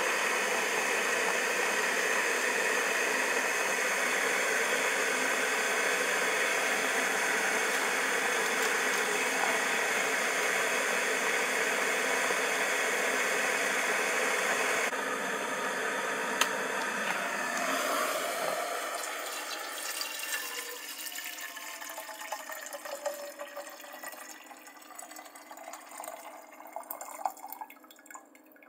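Kolin stainless-steel electric kettle heating water to the boil, a steady rushing and rumbling noise. About eighteen seconds in the low rumble stops and the sound dies away over the following seconds into faint scattered ticks and bubbling.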